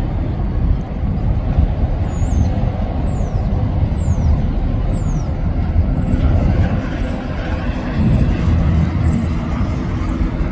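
Low, steady rumble of a rail yard during switching moves, from a locomotive and rolling freight cars. About two seconds in, a few short, high, falling chirps come roughly a second apart.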